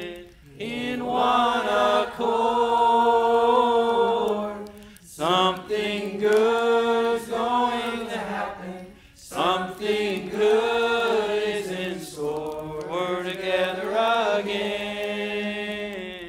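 Voices singing a slow gospel chorus without spoken words, in sustained phrases of three to four seconds with short breaths between them.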